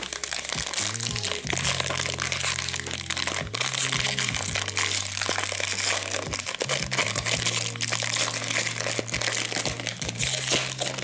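Plastic wrapper of a Panini Prizm trading-card pack crinkling and crackling as it is torn open and crumpled by hand, over background music with a steady bass line.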